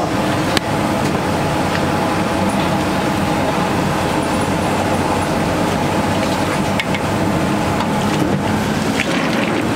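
Jalebis frying in a wide kadai of hot oil, a steady noisy sizzle, with a few light clinks of the steel slotted ladle against the pan.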